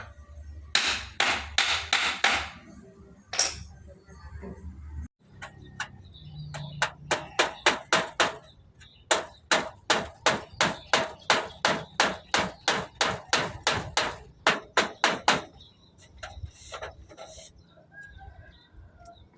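Hammer blows in a long, steady run of about three strikes a second, after a short quick burst of strikes near the start.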